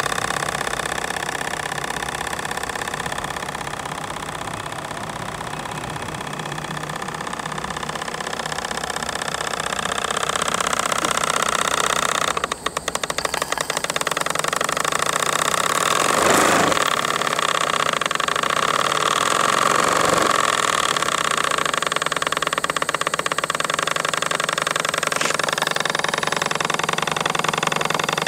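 A small 1930s-built model steam engine in a model steam launch, running steadily with a fast even beat over the hiss of its steam plant.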